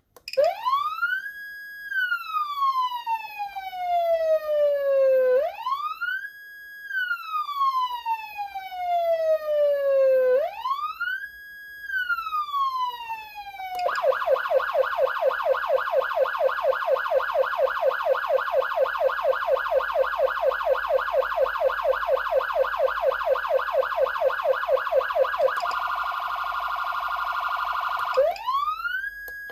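Whelen Sencom Gold electronic siren amplifier sounding a wail: three slow cycles, each rising quickly and falling slowly. About halfway through it switches to a rapid warble of about five sweeps a second, then briefly to a faster two-pitch warble, and a new wail rise starts near the end.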